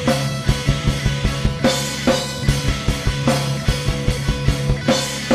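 Rock music from a band with drum kit and bass: drums strike in a steady beat over held bass notes.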